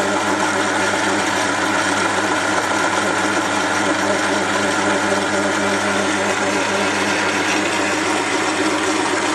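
Small metal lathe running steadily under power feed, its motor and gear train humming while the tool takes a coarse cut along a cast brass bar.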